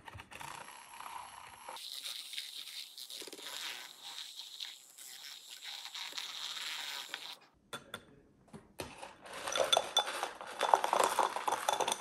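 Matcha drink being mixed in a cup: a steady swishing for about five seconds, then after a short pause, quick repeated clinking of a utensil against the cup.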